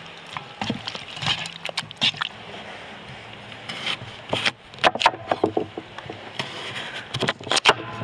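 Raw chicken pieces being stirred in marinade with a wooden spoon in a metal bowl. Then a kitchen knife cuts through a raw potato, making sharp knocks on a wooden cutting board, in clusters about halfway through and near the end.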